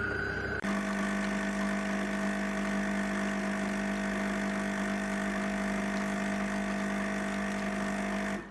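De'Longhi Magnifica Start bean-to-cup coffee machine running with a steady mechanical hum. It starts about half a second in, after a different machine sound, and stops shortly before the end.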